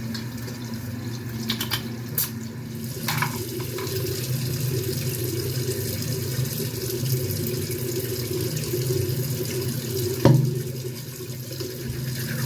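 Tap running steadily into a bathroom sink, with a few small clicks early on and a sharper knock about ten seconds in.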